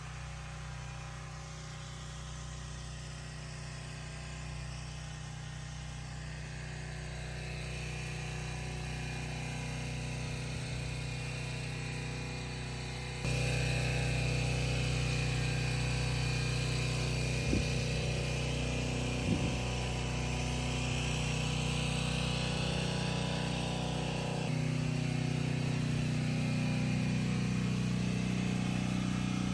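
An engine or motor running steadily with a constant low hum. It gets suddenly louder about 13 seconds in, and there are two short clicks a couple of seconds later.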